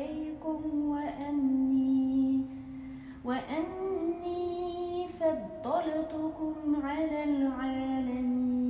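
A single voice chanting melodically in long held notes that slide and waver. It dips briefly, then a higher phrase starts a little after three seconds.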